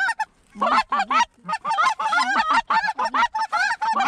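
Goose honking and clucking, loud and close, in quick runs of short calls with brief pauses and one short gap near the start.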